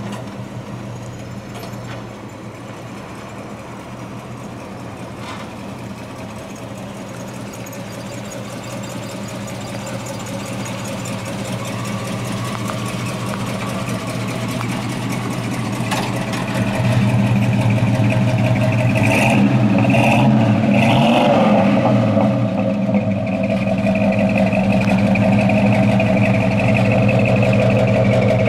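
1972 Chevrolet C-10's 400 big-block V8 running, growing steadily louder as the truck draws near, then idling close by at a steady level from about two-thirds of the way in. There are a few short clicks around twenty seconds in.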